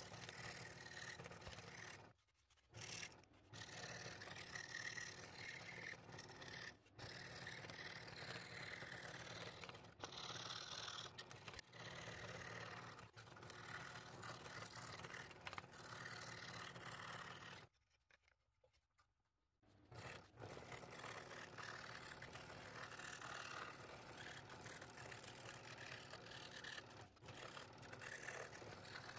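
Scroll saw running, its fine blade cutting wood along a pattern in a steady, fairly quiet run. The sound drops out briefly about two seconds in, and again for about two seconds a little past the middle.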